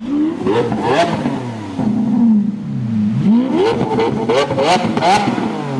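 Lamborghini engine revving: one rev up and back down in the first half, then a run of quick, short rev blips in the second half. Several rev peaks are topped by a sharp crack.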